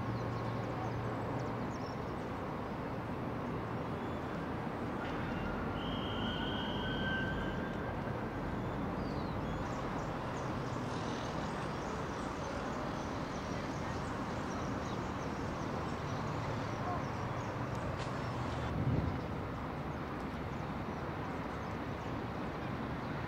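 Steady outdoor background noise with no clear single source. A short steady high tone comes about six seconds in, and a brief low thump comes near the end.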